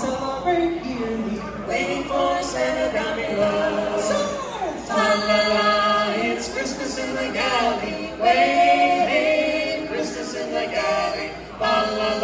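A cappella vocal group singing, several voices together with held notes and sliding pitches.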